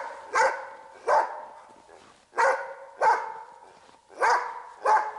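Hunting dog barking at a sable it has treed high up: seven sharp barks at uneven intervals of about half a second to a second, each dying away in an echo.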